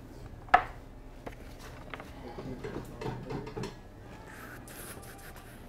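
A sharp click about half a second in, followed by a few softer clicks and faint handling sounds.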